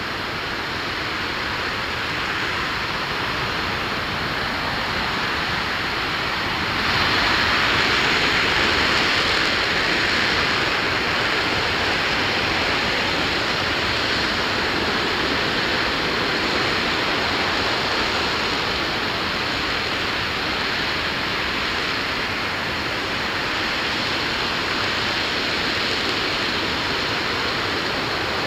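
RS-25 liquid-hydrogen/liquid-oxygen rocket engine firing steadily in a ground hot-fire test: a loud, continuous rushing noise with no break. It gets louder and brighter about seven seconds in.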